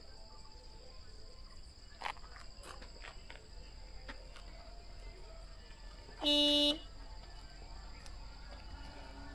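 A vehicle horn gives one short beep about six seconds in, over a steady high drone of insects.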